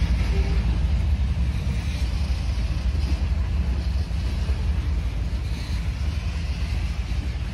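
Freight train of CSX open-top hopper cars rolling past, a steady low rumble of wheels on rails.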